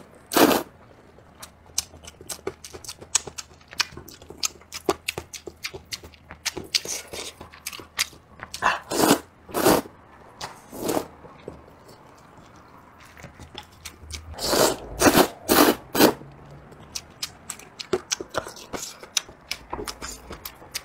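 A person slurping and chewing hot and sour sweet potato glass noodles, with wet smacking clicks throughout. Louder slurps come in clusters at the start, about nine to eleven seconds in, and about fifteen seconds in.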